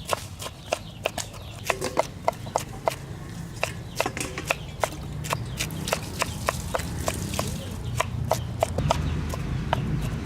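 Sharp knocks repeated irregularly, a few a second, over a low steady rumble.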